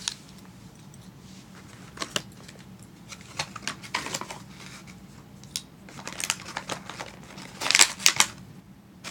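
Clear plastic toy packaging crinkling and rustling in the hands as it is handled and opened, in scattered bursts, loudest near the end.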